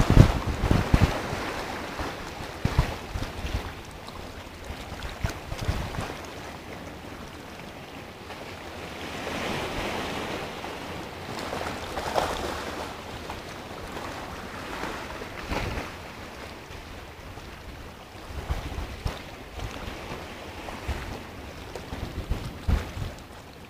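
Sea waves washing and breaking against a rock, rising and falling in swells. Wind gusts buffet the microphone, strongest at the start and again near the end.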